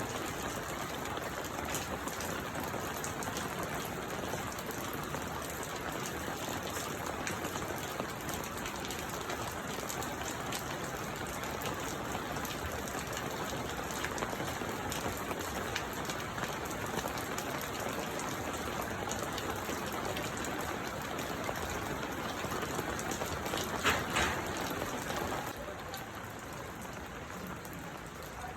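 Steady rain falling, the patter of individual drops audible over an even hiss. About three quarters of the way through there is one brief louder knock or splash, and the rain grows a little quieter near the end.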